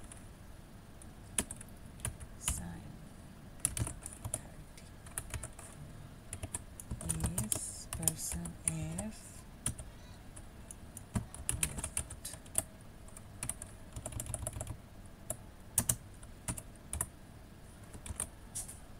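Typing on a computer keyboard: irregular runs of keystrokes with short pauses, as a line of C code is keyed in and the file saved with a keyboard shortcut near the end.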